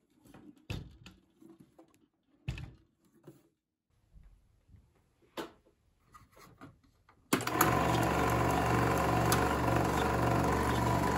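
Bell & Howell FilmoSound 1500-series 16mm projector handled with a few light knocks and clicks, then switched on about seven seconds in. Its motor and film transport start suddenly and run steadily with a low hum and fast, even mechanical chatter, on a freshly replaced drive belt.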